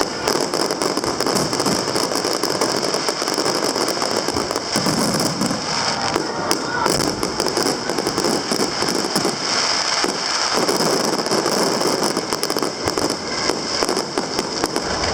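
Aerial fireworks display: a loud, dense, unbroken crackling of many small bursts going off at once.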